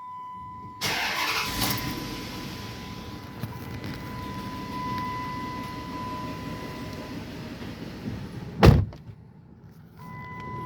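A 2005 Dodge Durango's 5.7 Hemi V8 starts about a second in with a loud burst, then runs at a steady idle under a steady high electronic tone. A loud short thump comes near the end, after which the sound briefly drops.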